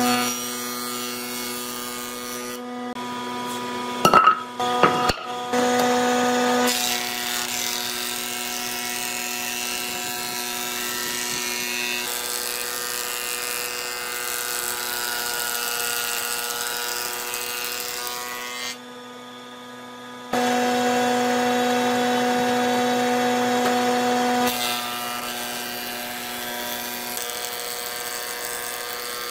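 Woodworking jointer and thickness planer running with a steady motor hum while the cutterhead shaves a wooden block, a loud rushing noise that drops away briefly now and then. A few sharp knocks come about four to five seconds in.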